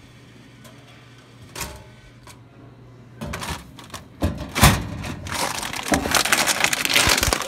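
A low hum and a single thump about a second and a half in. Then a long run of loud crinkling, crackling and rattling as a hand pushes open the snack vending machine's plastic delivery flap and pulls a crinkly bag of Cheetos out of the bin.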